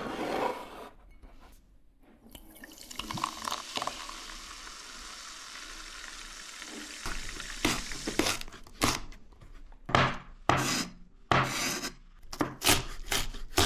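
Small hard objects being handled. A few seconds of steady hiss give way, about seven seconds in, to a string of irregular clicks and knocks.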